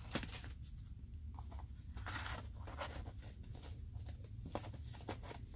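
Paper cards and envelopes rustling and sliding into a small cardboard box. There are light scattered taps and a longer scrape about two seconds in.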